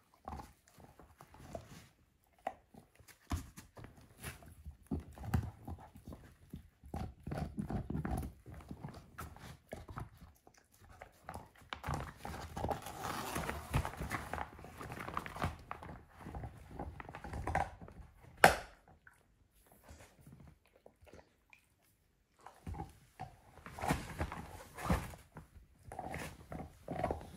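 Dog gnawing a lamb bone: irregular wet crunches and sharp clicks of teeth on bone, with one loud crack a little past the middle. Around the middle the crunching gives way to fabric rustling and soft paw steps on cloth as the dog moves about.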